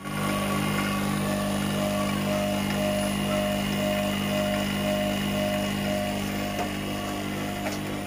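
Electric rotary vacuum pump running with a steady motor hum, a faint tone pulsing about twice a second on top. It is pulling a vacuum on the AC system's refrigerant lines to clear air and moisture before recharging.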